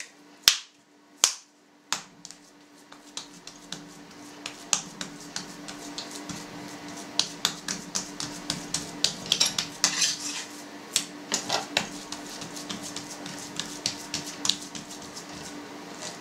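Raw ground beef slapped by hand to knock out air bubbles: three sharp slaps in the first two seconds, then quicker, lighter pats and taps as fingers press the patty flat on a cutting board. A faint steady hum runs underneath.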